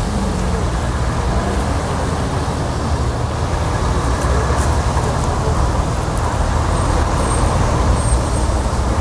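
Steady road traffic on a busy street: cars, trucks and buses passing, with a continuous low engine rumble.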